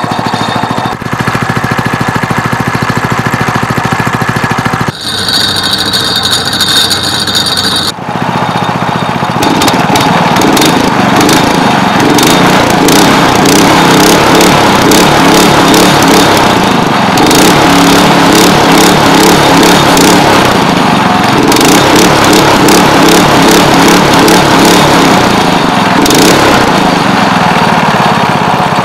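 Champion single-cylinder small engine on an SPS longtail mud motor running just after a cold start in freezing weather. It changes abruptly a few times early on, then runs louder and steadier from about nine seconds in.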